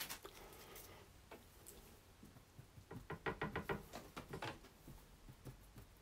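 A paintbrush dabbing against a painting on an easel: a few light knocks, then a quick run of rapid taps about three seconds in and two more just after.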